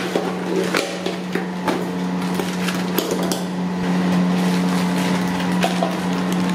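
Frozen fish fillets knocking into a steel bowl and plastic bags crinkling as they are emptied, a scattering of sharp knocks and rustles over a steady hum.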